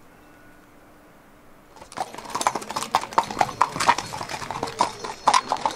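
Horse's hooves clopping on gravel, starting about two seconds in after a quiet stretch, with many quick irregular hoof strikes.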